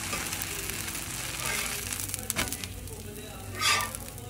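Dosa batter sizzling on a hot griddle, the hiss easing off partway through; a sharp click a little after two seconds in and a short, louder scrape near the end as a spatula slides under the dosa to lift it.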